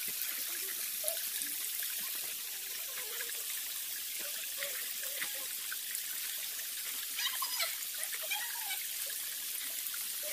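Steady rushing of a small forest stream flowing, with a few faint, brief sounds about seven to eight and a half seconds in.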